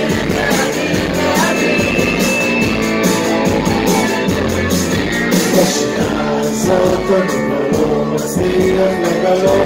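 Live rock band playing: electric guitars and drums with a steady beat, and a male lead singer singing over them.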